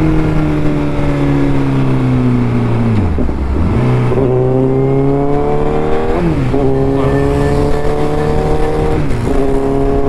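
Honda Fireblade's inline-four engine heard from the rider's seat: the revs fall as the bike slows, jump back up after a downshift about three seconds in, then climb steadily under throttle, with another gear change near the end.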